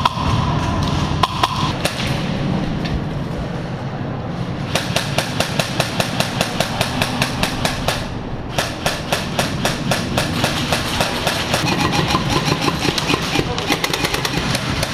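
Airsoft gun firing on full auto: a long string of rapid, evenly spaced shots starting about five seconds in, then a short pause and a second long string running nearly to the end, over a steady low rumble.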